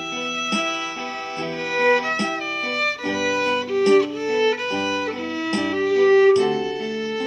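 Violin playing a slow melody with held notes over a backing track of plucked accompaniment and bass.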